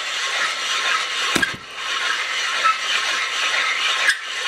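Seat-and-guide machine spinning a 46-degree valve-seat cutter on its pilot, cutting a new hardened exhaust valve seat in a Willys L-134 block: a steady whir with a hiss, dipping briefly with a knock about a second and a half in.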